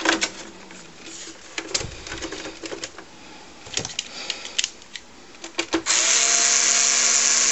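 Scattered clicks and knocks from case parts being handled, then about six seconds in an electric screwdriver runs steadily on a screw in the computer's expansion-interface case for about two and a half seconds and stops abruptly.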